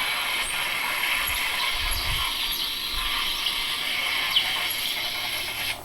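Budget lightsaber's lockup (force lightning deflection) sound effect, played through its small built-in speaker: a steady crackling hiss that cuts off suddenly at the very end.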